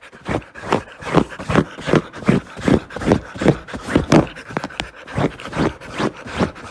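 A husky panting rapidly with its mouth open, right at the phone's microphone: an even run of loud, noisy breaths, a little under three a second.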